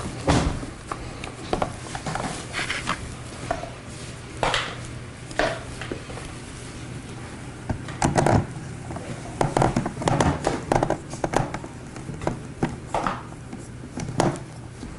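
Irregular clicks, taps and knocks of hard plastic toy-blaster parts being handled and fitted, over a low steady hum.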